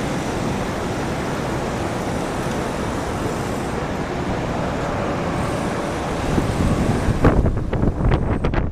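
Steady rushing jet-engine noise from a Boeing 767-300ER airliner on final approach. About seven seconds in, wind starts buffeting the microphone in uneven gusts.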